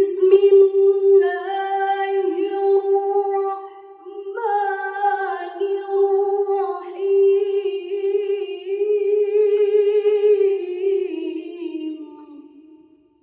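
A woman reciting the Quran in the melodic tilawah style, holding long, ornamented notes in two long breaths. The second phrase starts about four seconds in, and the voice fades near the end.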